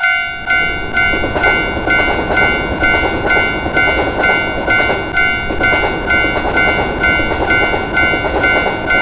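Japanese railroad crossing warning bell ringing about twice a second, over the rumble and wheel clatter of a train passing through the crossing, which starts abruptly at the outset.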